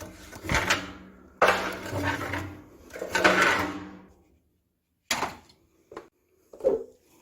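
A homemade metal scraper scraping ash out of a wood-burning stove: three or four long rasping strokes, then a few short metallic knocks near the end.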